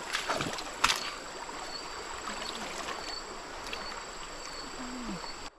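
Steady flow of a stream, with a few short splashes of hands working through shallow muddy water within the first second.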